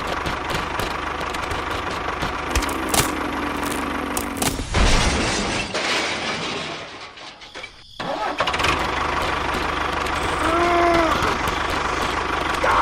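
A small engine running steadily. It dies away about seven seconds in and picks up again about a second later.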